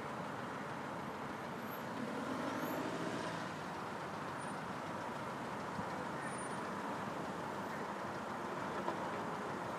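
Heavy vehicle engines running steadily, with a whine that rises and falls about two to three and a half seconds in.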